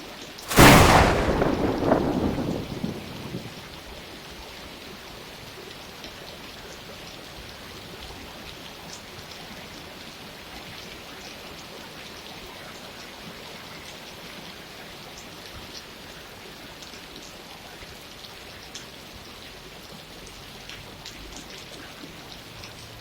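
Steady rain with scattered drop ticks. About half a second in, a sudden loud clap of thunder cracks and then rumbles away over about three seconds.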